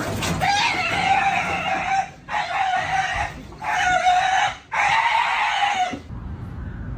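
An animal calling loudly: four long, harsh calls in quick succession, each holding a steady pitch, stopping about six seconds in.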